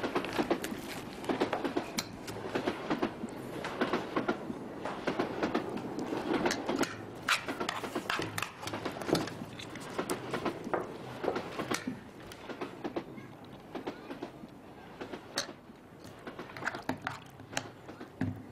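Cutlery and dishes clinking at a meal: irregular small clicks and taps of spoons on plates. Busy for the first twelve seconds or so, then fewer and quieter.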